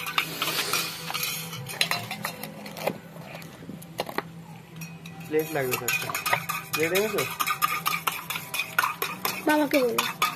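A spoon stirring liquid in a small cup, clinking quickly and repeatedly against its sides, with a quieter stretch in the middle.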